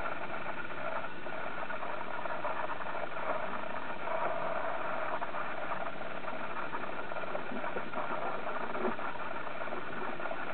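Steady hum of a parked car's engine idling, with no firework bang in between.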